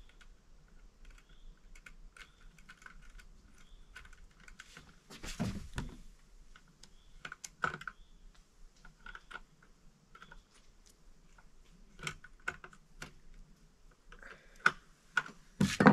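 Irregular light clicks and taps of a hand tool working on a chainsaw's bar and chain, with a few louder knocks, the loudest near the end.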